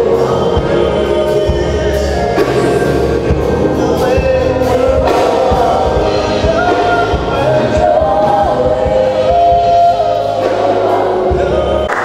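Gospel music: a choir singing over a band, with steady bass notes and drum hits. It breaks off abruptly at the very end.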